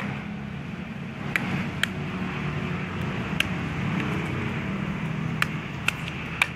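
Coconut husk being pried apart with a long metal blade: a handful of short sharp cracks and snaps as the fibrous husk splits, over a steady low background rumble.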